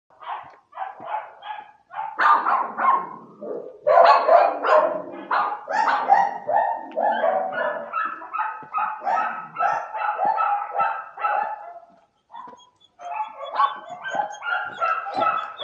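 Several dogs barking in rapid, overlapping volleys at different pitches. The barking breaks off for about a second near the end, then starts again.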